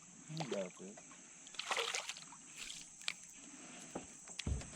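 Light splashing and sloshing of water as a hooked crappie is brought up to the boat, with a few sharp clicks and a low knock near the end.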